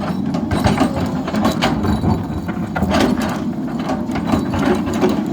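SANY excavator's diesel engine running steadily under load, with irregular knocks and scrapes as the bucket breaks up and drags at the drain structure.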